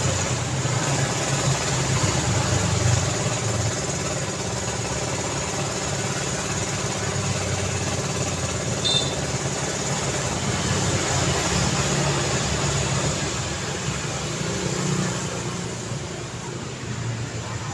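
Road traffic: a steady mix of vehicle engines running and idling, with a low hum underneath. A brief high squeak about halfway through.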